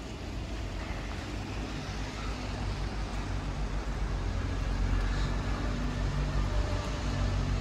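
A passing vehicle's engine: a low, steady rumble with a faint hum that grows gradually louder, loudest about five seconds in.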